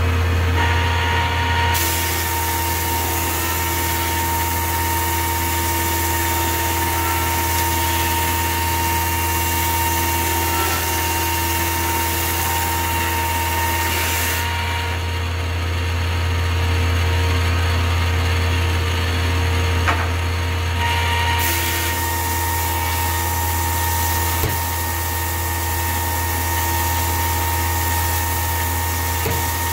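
Grizzly G0891 15-inch helical-cutterhead planer running alongside a dust collector: a steady low hum with a few steady whine tones over it. A higher hiss comes in about 2 seconds in, drops out around 14 seconds, and returns around 21 seconds, with a couple of small clicks in between.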